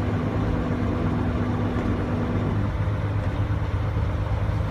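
Heavy truck's diesel engine running steadily at low revs, heard from inside the cab as a low drone. A higher hum within it drops out about two and a half seconds in.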